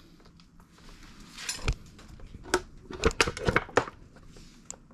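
Metal clinks and knocks of tools and parts on a GY6 ATV transmission case as it is worked open, in an irregular run of sharp strikes between about one and a half and four seconds in.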